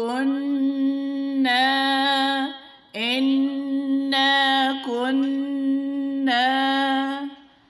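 Quranic recitation with tajweed: a single voice chanting a verse slowly, drawing out long vowels on a nearly steady pitch in several held phrases. There is a short pause about two and a half seconds in.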